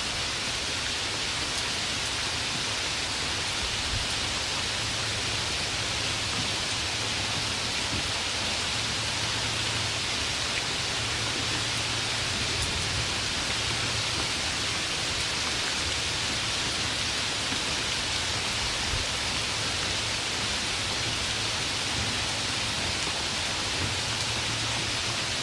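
Steady rainfall: an even, unbroken hiss of rain, with no thunder.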